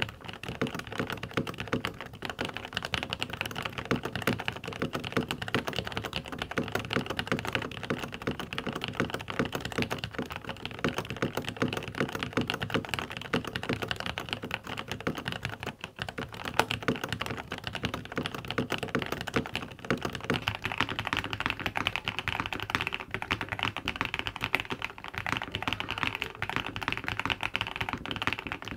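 Fast, continuous typing on mechanical keyboards, a dense clatter of keystrokes. It starts on a full-size board and ends on a compact Jamesdonkey A3, and the keystrokes take on a higher-pitched clack with less low thock in the later part.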